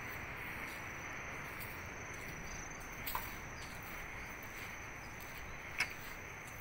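Steady outdoor beach ambience: a constant hiss with a thin, high, steady insect drone over it. Two faint clicks, about three and six seconds in.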